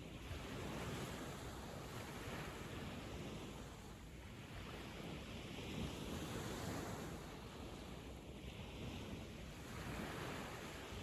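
Sea waves breaking on a sandy beach, the surf swelling and washing in slow surges every few seconds.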